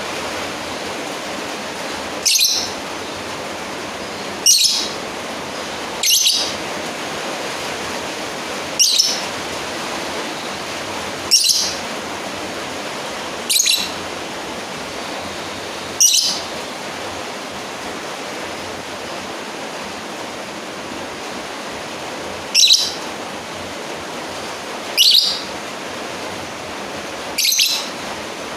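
Lovebird giving short, sharp, shrill single calls about every two seconds, ten in all with a pause of several seconds midway: a lovebird calling out to a rival. A steady hiss runs underneath.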